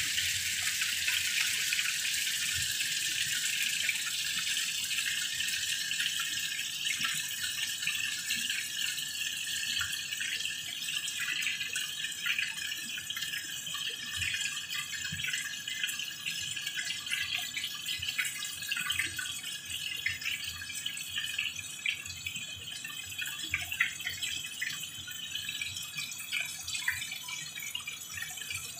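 Seasoned chicken pieces sizzling and crackling in a frying pan: a steady hiss with fine pops, a little louder in the first few seconds.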